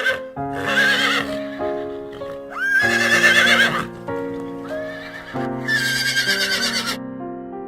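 Horse neighing (whinnying) three times, each call a wavering, quavering cry about a second long, over background music with a simple tune.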